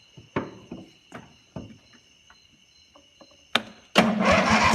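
A few sharp clicks and knocks, then about four seconds in the riding mower's engine, its muffler removed so it runs through two short straight pipes, is cranked over on the starter.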